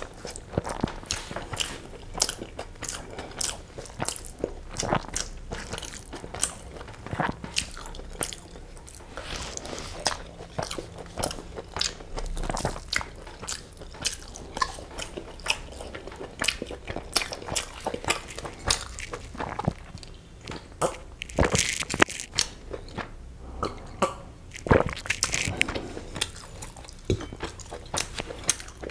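Close-miked eating sounds of egg biryani and chicken curry eaten by hand: chewing and biting, an irregular run of sharp smacking clicks, with fingers working through the rice on a steel plate.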